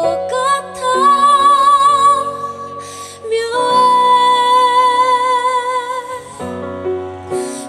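A woman sings long held notes with vibrato over a strummed acoustic guitar in a live amplified performance. The voice stops about six and a half seconds in, leaving the guitar playing alone.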